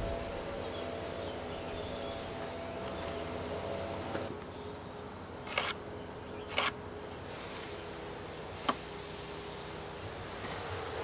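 Pallet-wood pieces handled on a wooden bench, with three sharp knocks about halfway through, the first two a second apart and the third two seconds later. A steady hum with a few held tones runs underneath and drops away about four seconds in.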